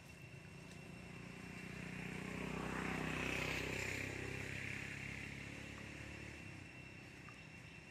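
Engine of a passing motor vehicle, growing louder to a peak about three seconds in and then fading away.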